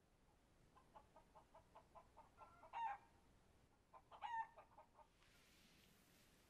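Chicken clucking in a run of short notes, about five a second, that swells into a louder call, then a second burst of clucks with another louder call about a second and a half later.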